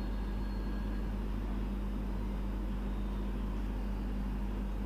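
A steady low hum with a faint even hiss, unchanging throughout, with no distinct event.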